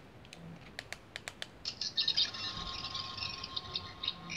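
A few quick clicks, then, about a second and a half in, the 13th Doctor sonic screwdriver toy starts its electronic sound effect: a steady, high warbling buzz.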